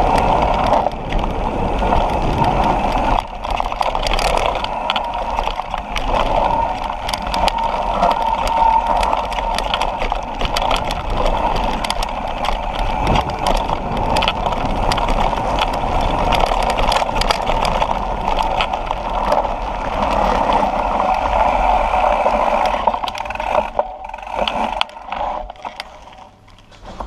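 Propain Tyee downhill mountain bike riding fast down a dirt trail: a steady rush of wind over the microphone and tyre rumble, with many short rattles and clicks from the bike over rough ground. It gets quieter and more broken up near the end as the bike slows.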